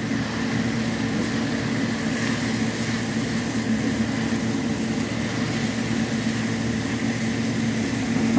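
A steady machine hum holding one low tone, over the faint sizzle of broad beans, mushrooms and green chilies cooking in a wok.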